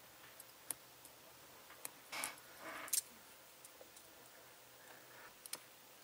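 Faint small clicks and a short scratchy scrape, with a sharper click about three seconds in, as wires are pressed into the slots of a Cat 5e RJ45 keystone jack with its small plastic punch-down tool.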